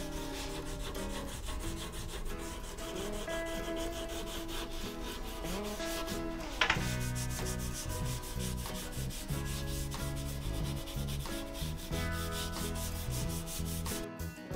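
Hand sanding: quick rubbing strokes of abrasive on a workpiece, with one louder, sharper stroke about six and a half seconds in, over background music.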